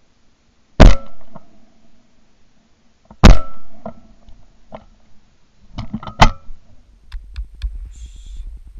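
Two shots from a 20-bore over-and-under shotgun, about two and a half seconds apart, the first about a second in, each with a short echoing tail. A few lighter clicks and a sharp knock follow about six seconds in, then a low rumble near the end.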